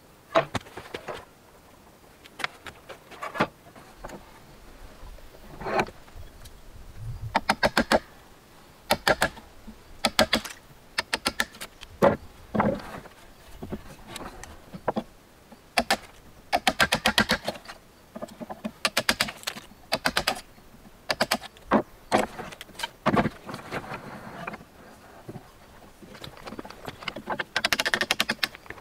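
Wooden blocks and offcuts being handled on a wooden workbench: irregular knocks and clatters, some in quick rattling runs.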